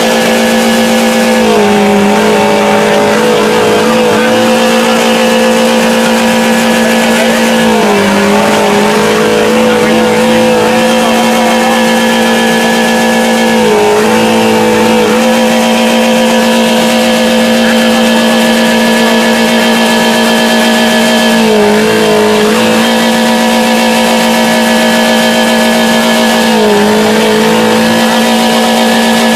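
Car engine held at sustained high revs with the throttle wide open, a loud, steady high-pitched note whose revs dip briefly about five times and recover. The engine is being deliberately run to destruction until it blows.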